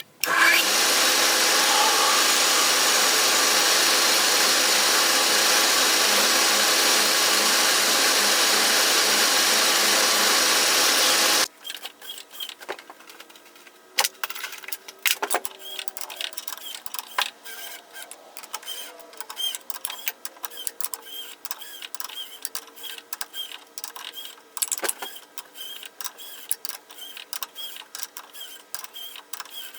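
A shop machine runs loudly and steadily, then cuts off abruptly about eleven seconds in. A quieter mechanical running follows, with small regular ticks about once a second and a few sharp knocks.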